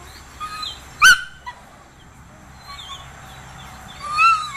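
A dog whining in short high cries, with one sharp, loud yelp about a second in and a longer whine near the end.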